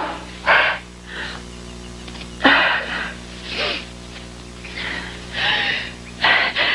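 A man sneezing again and again, with strained, wheezy breaths between the sneezes: an allergic sneezing fit brought on by daisies. Soft music runs underneath.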